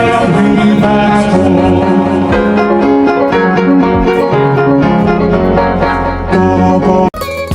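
Instrumental backing music of a children's song, carried by piano-like keyboard. About seven seconds in it cuts off sharply, and a new tune with plucked notes begins.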